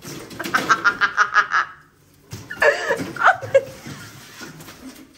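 A woman laughing in quick pulses, about six a second, for a second and a half. About two and a half seconds in comes a higher, pitch-bending vocal outburst.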